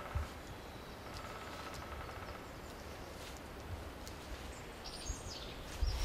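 Outdoor ambience: steady low background noise with a few faint bird chirps, most of them near the end, and a single soft thump just after the start.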